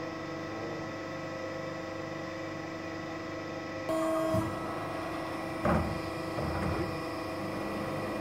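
CNC hydraulic press brake running idle: a steady machine hum with several steady tones. A short louder tone comes about four seconds in, and a single knock a little under six seconds in.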